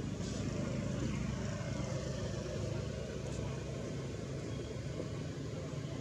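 Steady low rumble of a motor vehicle running, over an even outdoor hiss.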